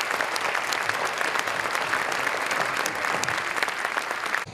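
Large audience applauding, dense steady clapping of many hands.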